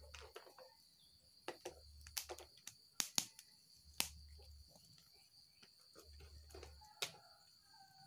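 A wood fire crackles under a cooking pot with scattered sharp snaps and clicks, over a steady high insect drone, and a chicken clucks faintly near the end.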